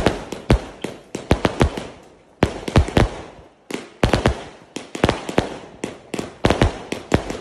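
A 0.8-inch, 388-shot consumer firework cake firing: a rapid run of sharp bangs from tubes launching and small shells bursting overhead, about three a second, with a short pause around the middle.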